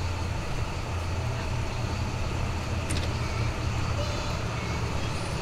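Steady low rumbling background hum and hiss, with one faint click about three seconds in.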